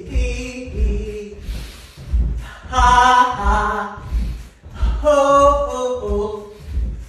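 A person's voice laughing and vocalizing freely in a laughter yoga exercise, with two long drawn-out laughs about three and five seconds in, over a regular low thump about one and a half times a second.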